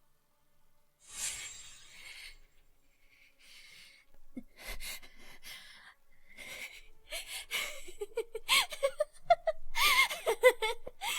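A person gasping and breathing hard in uneven bursts, with strained, wavering vocal cries and whimpers building louder over the last few seconds.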